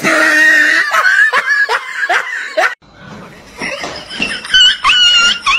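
A person laughing hard in quick repeated bursts, about three a second; after a brief break near the middle, a run of high-pitched repeated cries.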